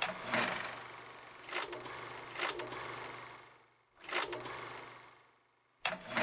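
Old film projector sound effect: a steady mechanical whir with a sharp click about every second. It cuts out twice for a moment in the second half.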